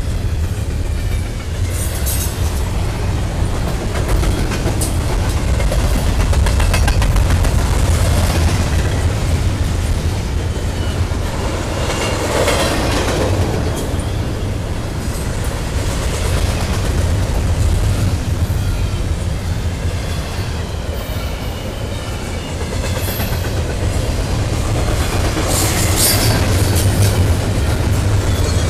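Double-stack intermodal container train rolling past, its well cars' wheels making a steady low rumble on the rails, with a few brief high-pitched wheel squeals.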